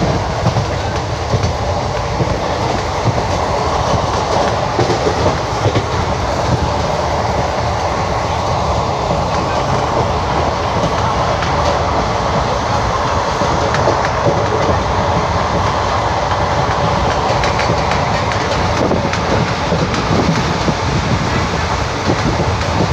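Track sound of an Indian Railways ICF passenger coach: a steady, loud rumble of the wheels on the rails with clatter over the rail joints.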